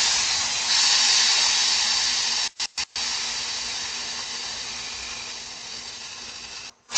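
Air hissing out of a slashed car tyre: a steady hiss that slowly fades, broken by a few brief dropouts about two and a half seconds in and again near the end.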